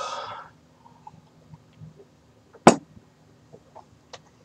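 A man's sharp, hissing breath, then quiet with faint clicks and one loud, sharp knock a little under three seconds in.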